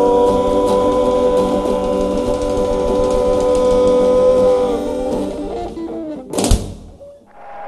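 A live band with acoustic guitar and drum kit holds one long sustained chord, the ending of a song. The chord fades out and is closed by a single sharp hit on the drum kit about six and a half seconds in.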